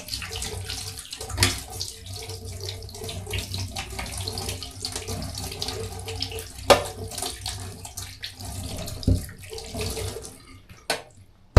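Water running from a kitchen tap into a sink, with a few sharp knocks as things are handled under it. The flow stops about ten and a half seconds in.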